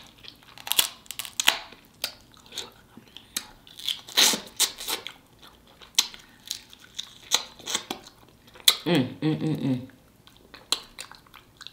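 Close-up wet eating sounds of king crab knuckles in sauce: sucking and slurping the meat out of the shells, chewing and smacking, with pieces of shell crunching and tearing. A brief hummed "mmm" comes about nine seconds in.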